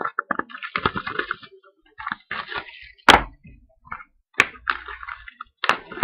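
Cellophane wrapping being torn and peeled off a trading card box, crinkling in short bursts, with a couple of sharp snaps, the loudest about three seconds in.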